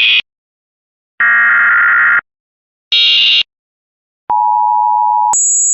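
Emergency Alert System header: short screeching digital data bursts, the second lower and longer than the other two, which are pitched up. About four seconds in the two-tone EAS attention signal starts, and near the end it jumps suddenly to a much higher pitch.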